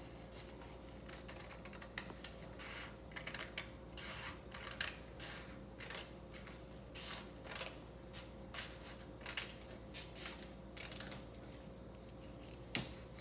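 Scissors cutting through a folded sheet of A4 coloured paper: a long run of short, irregular snips, fairly faint.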